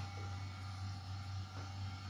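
A steady low hum with faint background noise. A couple of very faint soft ticks sound, one near the start and one about one and a half seconds in.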